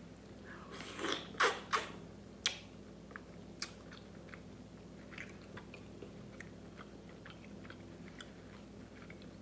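Close-miked mukbang eating sounds from a sauce-drenched seafood boil: a few louder wet bites and lip smacks about a second in, then quieter chewing with small mouth clicks.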